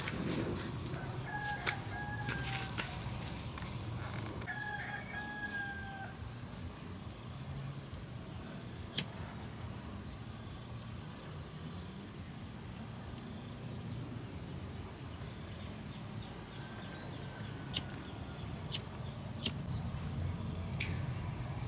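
A rooster crowing twice in the first few seconds and once more faintly later, over a steady high-pitched whine. Several sharp clicks near the end, from a lighter being struck to light dry straw.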